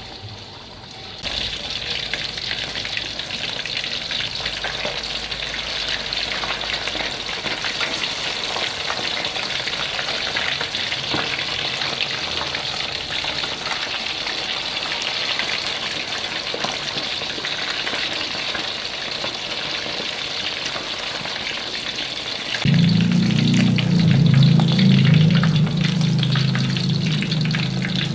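Catfish pieces deep-frying in hot oil in a wok: a steady crackling sizzle that starts about a second in, with the occasional scrape of a utensil in the pan. A loud low hum joins suddenly near the end.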